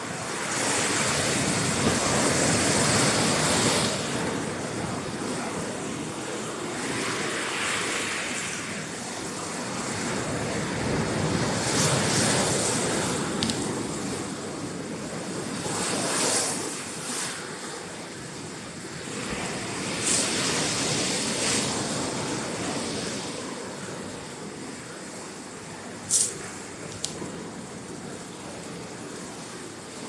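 Sea waves surging in among rocks and washing over a gravel shore. Each swell rises and falls every few seconds. Near the end there is one brief sharp click.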